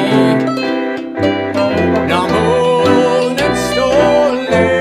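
Small acoustic ensemble playing live: cello, tuba, violin and hang drum, with plucked strings.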